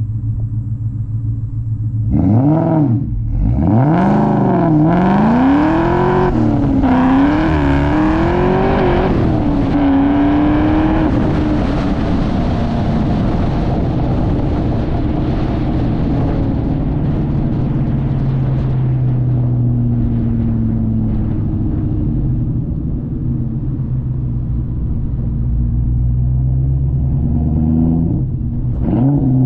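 2003 Mustang Cobra's supercharged 4.6-litre V8 through long-tube headers, an X-pipe and a Bassani catback exhaust. It idles, is revved in several quick rises and falls from about two to ten seconds in, then settles into a steadier note that slowly drops in pitch, with another rev near the end.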